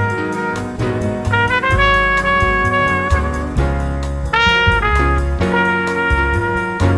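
Jazz with a brass lead playing long held notes, one starting with a short upward slide, over a bass line, played back through a vacuum-tube hi-fi system.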